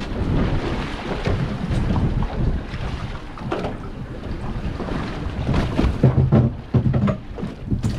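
Wind buffeting the microphone on a boat at sea, over the noise of the boat running and the water, with scattered light knocks.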